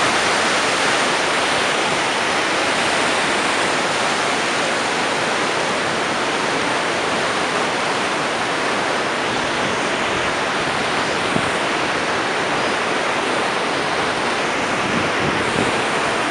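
Fast mountain river rushing over rocks in white-water rapids: a loud, steady rush of water.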